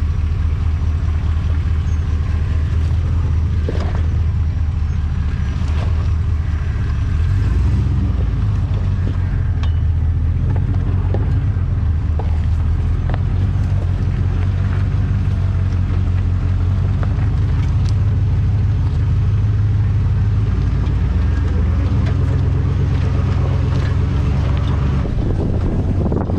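A GMC Sierra 2500HD pickup's engine running with a steady low drone as the truck crawls a rough trail, with scattered clicks and knocks over it.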